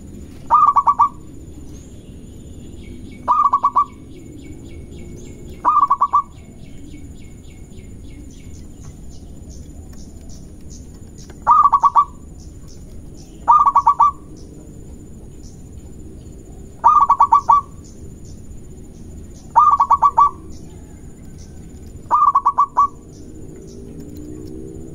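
Zebra dove (perkutut) cooing: eight short phrases of rapid staccato coo notes, repeated every few seconds. A fainter, higher chirping trill is heard early on between them.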